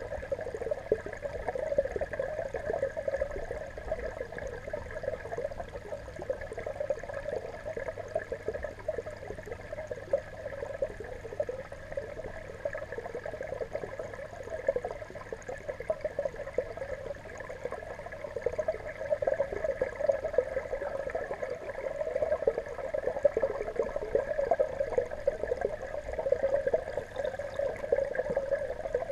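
Steady, muffled, crackly water noise picked up by a camera submerged among the fish.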